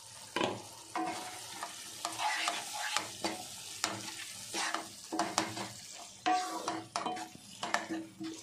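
A spatula stirring thick bitter gourd and tomato thokku in a nonstick pan, with repeated scrapes against the pan roughly once or twice a second, over a low sizzle of the cooking mixture.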